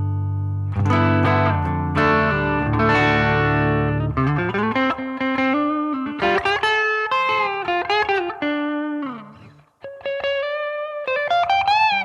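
Electric guitar with humbucker pickups, a Gibson Les Paul Studio on its bridge pickup, played through a BOSS GT-1000 low-gain crunch amp setting. A ringing chord dies away, strummed chords follow, then single-note lines with string bends, and after a brief pause near the end a higher lead phrase with bends.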